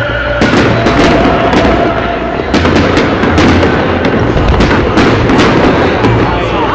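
Fireworks going off in quick succession: a dense, loud crackle of many sharp pops and bangs.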